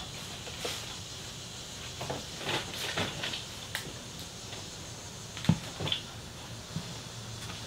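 Scattered light knocks and clatter of parts and objects being handled, with one sharper knock about five and a half seconds in.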